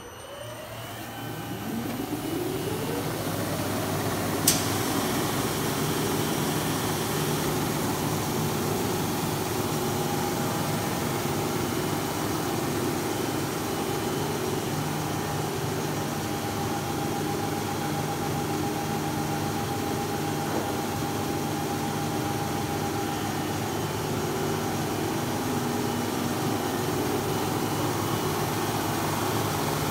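Daco SI350 label inspection slitter rewinder starting up: a whine rises in pitch over the first few seconds as the web gets up to speed, then the machine runs steadily. There is one sharp click about four and a half seconds in.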